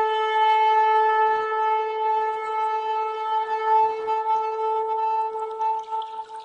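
One long, steady horn-like note held without a change in pitch, fading out near the end.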